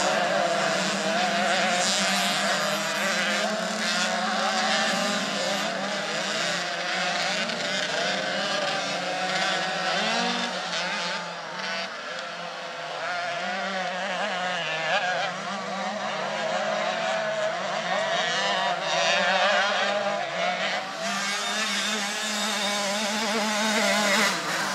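Several motocross bikes racing, their engines revving up and down and overlapping.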